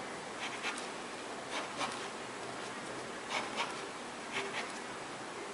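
Pencil lead scratching on paper in short sketching strokes, coming in about four quick pairs, over a steady background hiss.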